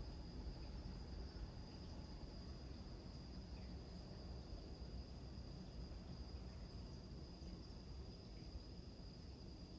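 Crickets chirping in a steady chorus at two high pitches, over a low, even rumble of surf.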